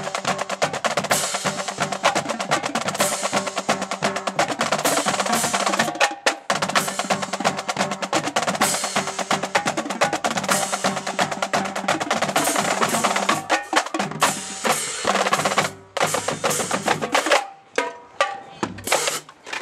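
Marching drumline playing a fast cadence on snare drums, bass drums and cymbals. About fourteen seconds in the rapid playing breaks into a few spaced hits before it stops.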